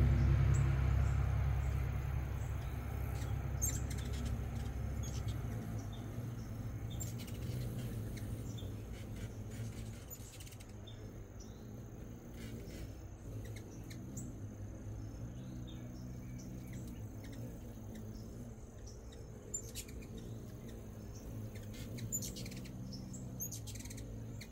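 Short, high chirps scattered throughout, hummingbird chip calls at a feeder, over a steady high insect trill that sets in partway through. A vehicle's low rumble fades away over the first several seconds.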